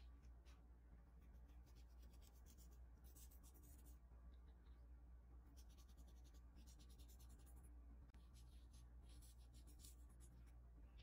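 Faint pinches of granulated sugar sprinkled over brioche dough balls in a metal muffin tin: a few soft, scratchy scatters of grains, over a low hum.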